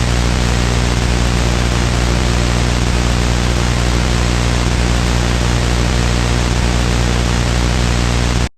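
Loud steady static hiss with a low hum beneath it, cutting off abruptly near the end.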